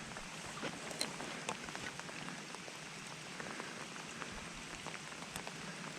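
Steady rain falling, with scattered sharp raindrop ticks through the hiss.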